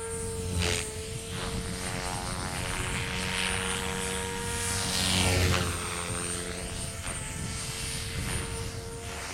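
Mikado Logo 400 electric radio-controlled helicopter in flight: a steady motor and rotor whine with rotor swish that swells and fades as it moves about, loudest about five seconds in.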